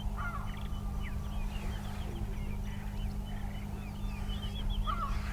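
Several birds chirping and calling, with a louder arched call about a quarter second in and again near the end, over a steady low hum.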